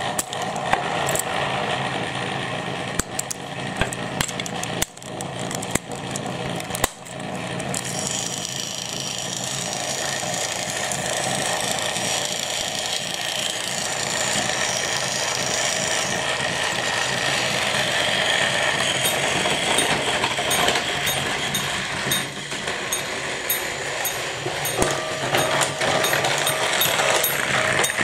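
Battery-powered Plarail toy train gear motors whirring steadily. The first several seconds also hold clicks and knocks of hard plastic being handled.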